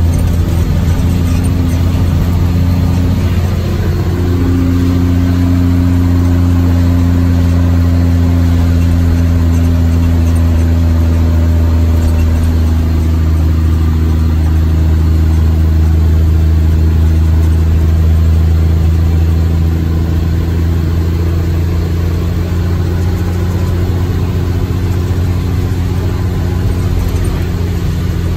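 Cummins ISM inline-six diesel engine in an International ProStar truck running steadily, with a small step up in pitch about four seconds in.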